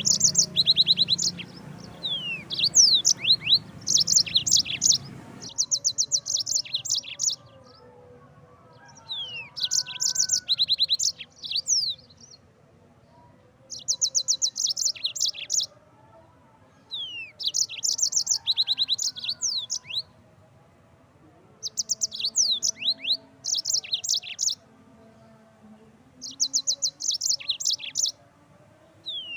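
Yellow-fronted canary (Mozambique canary) singing: repeated short phrases of fast, high trills mixed with quick sweeping whistled notes, each phrase lasting a second or two, with short pauses between them. A low background hum drops away about five seconds in.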